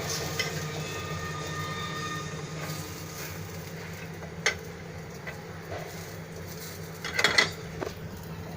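Potato strips frying in oil in a pan, a steady sizzle over a low hum, with metal tongs clicking against the pan about four and a half seconds in and clattering briefly near the end.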